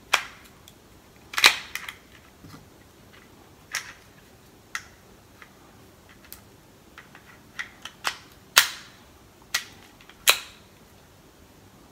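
Sharp clicks and knocks of an Olight PL-Mini 2 Valkyrie weapon light being fitted and latched onto a Glock 19 pistol's accessory rail. There are about a dozen irregular clicks, the loudest about a second in and in the last few seconds.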